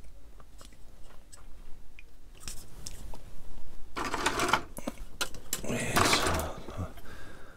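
Small plastic model-kit part being worked at the bench: a few light clicks, then three short bursts of scratchy scraping.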